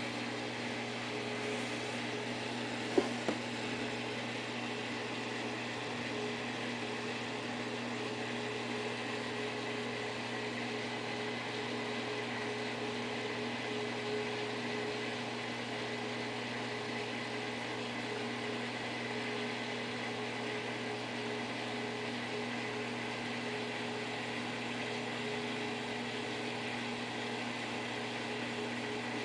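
Steady electric hum and whir of running saltwater aquarium equipment, holding several constant tones over a hiss. Two short clicks about three seconds in.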